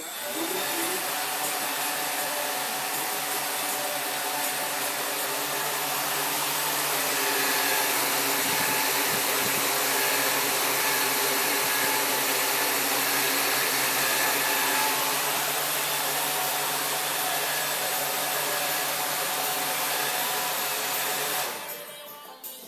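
The four electric motors and propellers of a homemade Arduino AeroQuad quadcopter running on the ground, a loud steady whir with a steady pitch that gets a little louder about seven seconds in. The motors stop shortly before the end.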